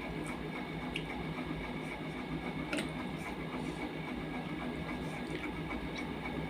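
A steady hum with a faint buzz, over which come a few soft clicks of eating by hand, about a second in, near three seconds and near six seconds: fingers working rice and curry on a steel plate, and chewing.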